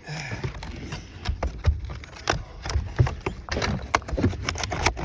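Irregular knocks, taps and scrapes of old, brittle wood shake shingles being handled and worked on a roof.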